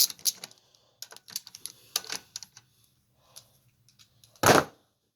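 Irregular light clicks and taps of hand tools and small metal engine parts being handled, with one louder clatter about four and a half seconds in.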